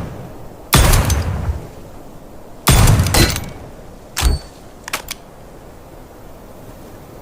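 Revolver gunshots: two loud shots about two seconds apart, each with a long ringing tail, then a smaller bang a little past four seconds, followed by two light clicks.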